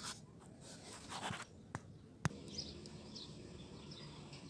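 Faint scratchy rustling of hands working the engine wiring harness, with two sharp plastic clicks about two seconds in as the camshaft position sensor's wiring coupler is handled.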